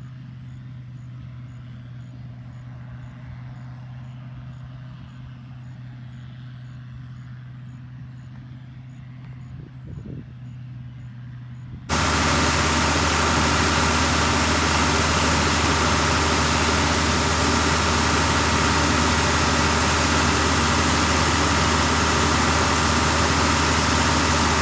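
A steady low engine hum, then about halfway through it cuts abruptly to the much louder, steady running of an International 1420 combine harvesting soybeans.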